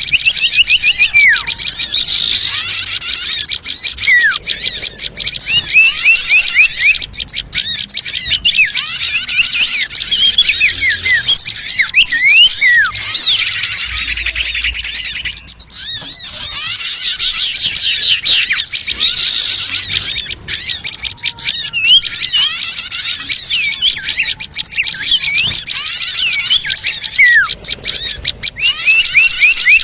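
A loud, dense chorus of many small birds chirping and twittering at once, with no break: a bird-lure ('pikat') recording of a noisy small-bird flock, used to draw small birds in.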